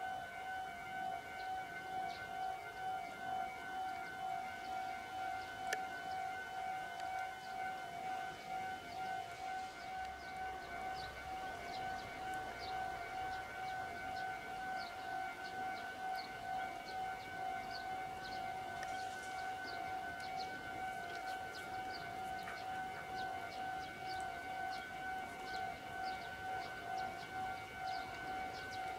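Railway approach warning alarm sounding continuously in a station yard: a steady electronic tone at two pitches, pulsing slightly. It signals that a train is approaching to enter the station.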